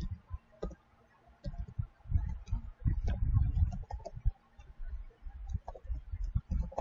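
Typing on a computer keyboard: irregular clicking keystrokes with dull low thuds, pausing briefly about a second in before picking up again.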